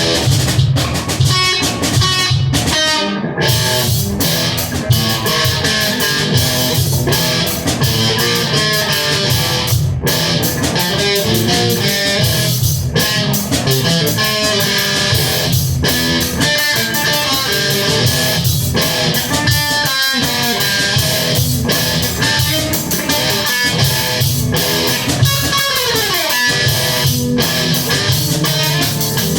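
Electric guitar and drum kit playing rock together, dense strummed and picked guitar over steady drum hits. Near the end a guitar note slides down in pitch.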